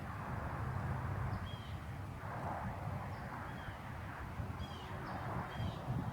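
Small songbird chirping: about five short, high notes, each curving downward, spaced out over several seconds above a steady low rumble.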